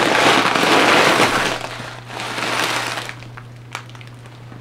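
Plastic packaging crinkling as a plastic-wrapped muffin is handled and lifted out of a box of bubble wrap: loud rustling for about two seconds, a shorter second rustle, then quieter handling with a single click.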